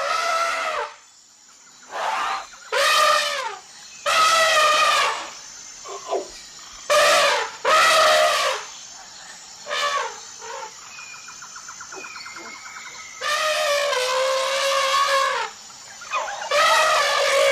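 Elephant trumpeting: a series of about ten loud, brassy calls, most under a second long, with a longer call of about two seconds past the middle.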